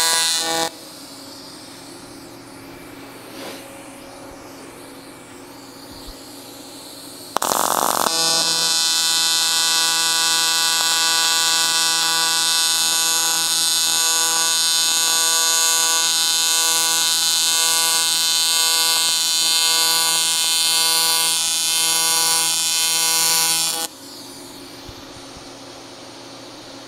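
AC TIG welding arc on aluminium, welding a 6061 bung onto a cast aluminium intercooler: a loud, steady, high-pitched buzz. It stops just under a second in, strikes again after about seven seconds with a short hiss, then runs steadily for about sixteen seconds before cutting off near the end.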